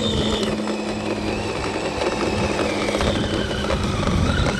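RC snowmobile's brushless electric motor whining with the rattle of its studded track: the whine drops in pitch in the first second and climbs sharply near the end as the throttle comes back on. The clatter is what the owner puts down to the track running on the drive spool.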